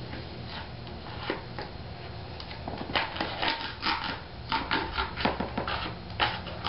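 Repeated scraping strokes of the outer ring being cut off an 18-inch Fi BTL subwoofer, sparse at first and then faster and louder from about three seconds in.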